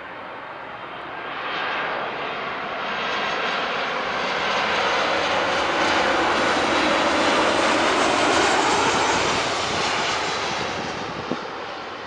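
Jet noise from a Boeing 737-800's CFM56 engines as the airliner passes by on its landing approach. The noise swells over several seconds, peaks in the middle, then drops in pitch and fades as the plane goes past.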